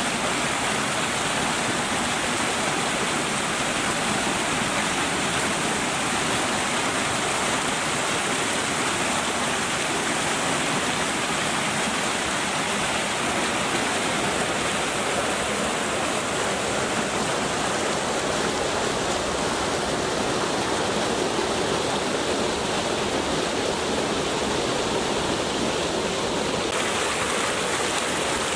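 Water rushing steadily over a small rock-ledge waterfall and churning into a foaming pool below.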